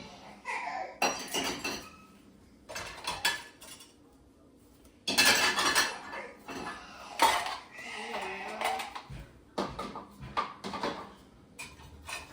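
Dishes and cutlery clattering and clinking as they are set into a dishwasher rack, in irregular bursts with a short lull a few seconds in; the loudest clatter comes about five seconds in.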